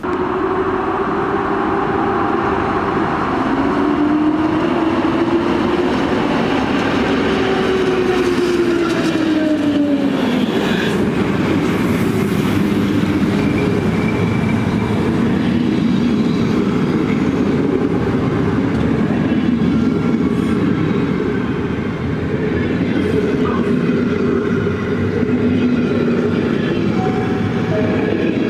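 Passenger train hauled by an EP07 electric locomotive pulling out and rolling past, its coaches' wheels rumbling and clattering steadily over the rails. A pitched hum rises and falls in the first third.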